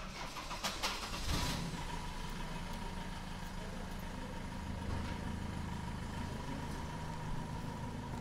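A vehicle engine idling: a steady low rumble with a thin steady whine over it, after a few sharp clicks in the first second and a half.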